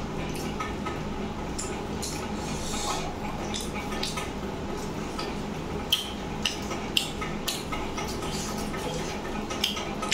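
Fingers mixing rice and chicken curry on a stainless-steel plate: soft scraping with several sharp ticks against the metal, most of them past the middle.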